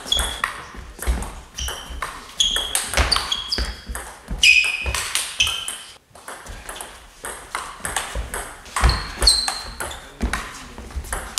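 Table tennis rally: the celluloid ball clicking off the rackets and bouncing on the table in quick back-and-forth hits, with short high squeaks between the hits. About six seconds in the hits stop briefly and a new rally starts.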